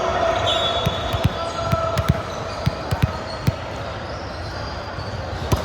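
Irregular thuds of a ball on an indoor court, mixed with short high sneaker squeaks, over a general background of game noise and voices in a large hall.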